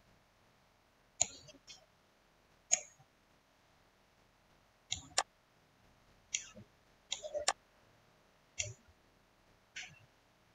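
Computer mouse buttons clicking: about ten sharp, separate clicks at uneven intervals, some in quick pairs and a short cluster in the middle.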